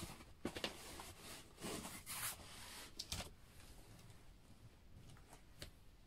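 Cardboard shipping box being handled and opened by hand: faint rubbing and rustling with a few light knocks and clicks, and a brief rasping stretch about two seconds in.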